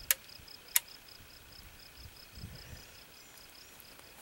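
Insect chirping in a steady pulsed rhythm, several chirps a second. Two sharp clicks about half a second apart come from the rifle being handled.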